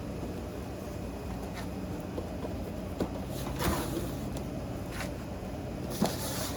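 Fireworks packages being handled and set down: a few light knocks and short rustles or scrapes, the loudest a couple of seconds before the end, over a low steady hum.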